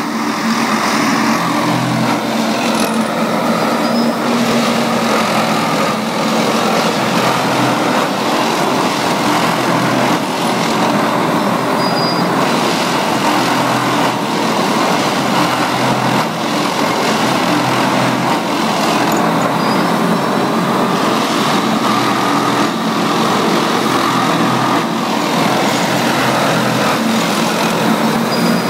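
Matisa B66 track tamping machine at work on the first tamping pass: its engine and hydraulics run loudly and steadily while the tamping units pack the ballast under the sleepers. A short high beep sounds every several seconds.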